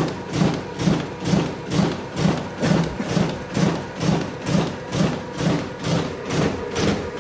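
Riso CZ 180 digital duplicator running a print job, feeding and ejecting sheets with an even mechanical beat of a little over two strokes a second.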